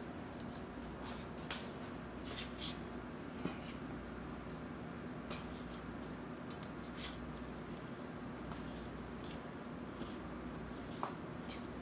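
Metal fork scraping and tapping against a stainless steel mixing bowl as cookie dough is mashed together, in irregular soft scrapes and clicks with a few sharper taps. A steady low hum runs underneath.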